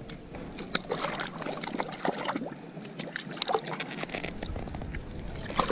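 Small, irregular splashes and sloshing of shallow water as a hooked trout is handled at the water's edge.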